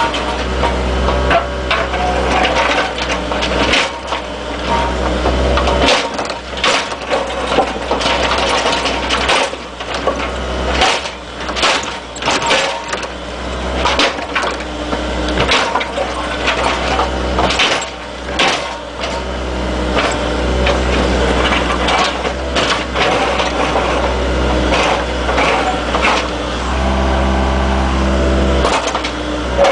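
Excavator's diesel engine running steadily under work, with frequent sharp clanks, knocks and cracks of material being dug and crushed.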